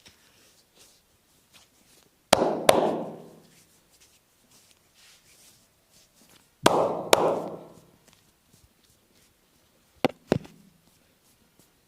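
Percussive massage strikes: the masseur's hands strike the back sharply in three pairs, the two blows of each pair a few tenths of a second apart and the pairs about four seconds apart, each blow with a short fading tail.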